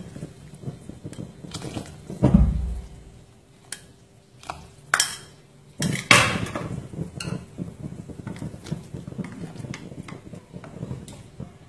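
Metal ladle and bowl knocking and clinking against a metal soup pot as chopped herbs are tipped in and stirred. There are a handful of separate knocks, the loudest about two and six seconds in.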